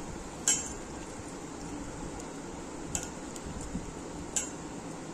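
A hand squeezing soaked bael (wood apple) pulp in water in a steel bowl, with a few short clinks against the bowl: the loudest about half a second in, others near three and four and a half seconds.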